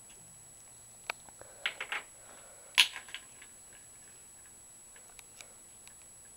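Short sputtering mouth and throat noises from someone holding a mouthful of dry ground cinnamon: a sharp click about a second in, a quick cluster of sputters, then one louder sputtering cough about three seconds in, followed by a couple of fainter ones.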